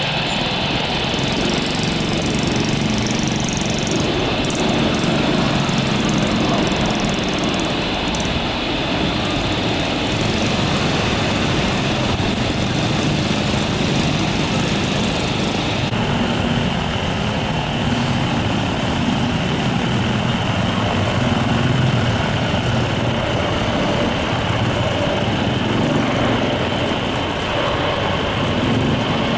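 Steady jet engine noise from airliners landing: a Boeing 777 touching down and rolling out, then, after a shift about halfway, a Boeing 747-400F freighter on final approach.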